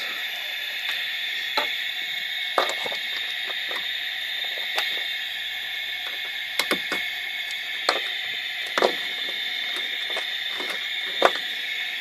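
Mongoose car alarm siren giving off a steady static-like hiss, a fault: it keeps hissing whether the alarm is armed or disarmed and with its siren kill switch turned. A few scattered clicks and taps sound over it.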